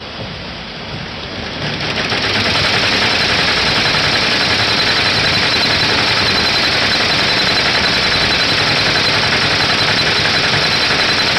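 Multi-needle embroidery machine stitching at speed, a rapid, steady clatter of needle strokes. It is a little quieter for the first two seconds, then runs evenly.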